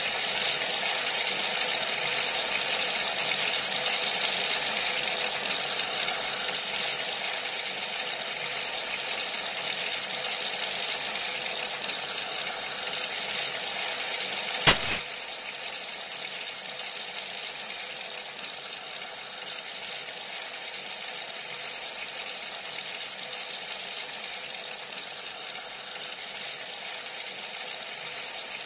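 Steady gushing of water pouring from a pipe outlet: treated wastewater effluent discharging into a leaching chamber of a drain field. A single sharp click about halfway through, after which the rush of water is a little quieter.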